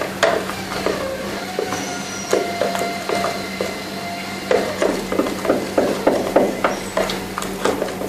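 A stirring stick working a thick slime mixture of glue and body lotion in a bowl: a run of knocks and scrapes against the bowl, coming faster, about three a second, from about halfway.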